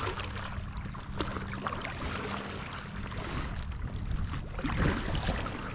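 Water splashing and lapping against an inflatable stand-up paddle board as it is paddled along, with the paddle dipping into the water. There is a louder swash about five seconds in.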